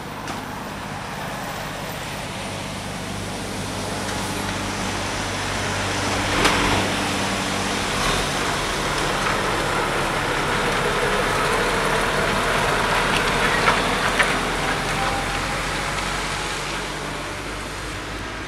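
A lorry drives past on wet road, its engine and tyre noise swelling to loudest in the middle and then fading. There are a few sharp knocks, once about six seconds in and twice near fourteen seconds.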